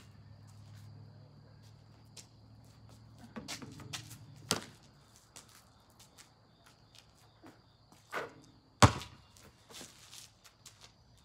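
A basketball thudding several times, the loudest thud about nine seconds in, over a low hum during the first few seconds and a faint steady high whine.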